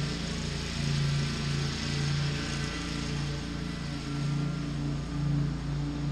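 Riding lawn mower engine running at a steady speed, a continuous drone that swells and fades in a slow regular pulse.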